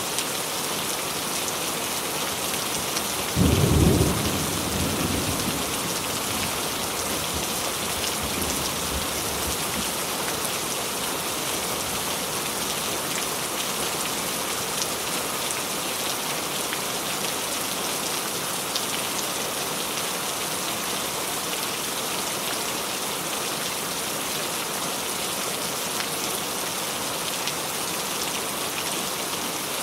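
Steady rain, with a sudden low rumble of thunder about three and a half seconds in that fades away over the next few seconds.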